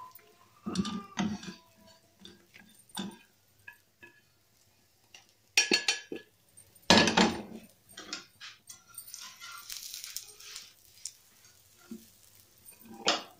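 Steel kitchen tongs clinking and knocking against frying pans and a tawa on a gas stove: a scatter of separate short clatters, loudest in the middle.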